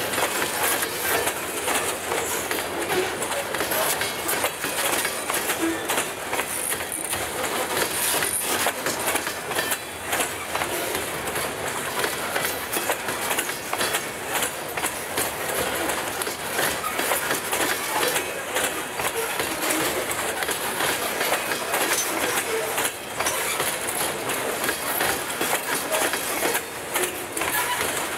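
Loaded covered hopper cars of a freight grain train rolling past close by: steady rolling noise from the wheels on the rails, with rapid clicking as they cross the rail joints.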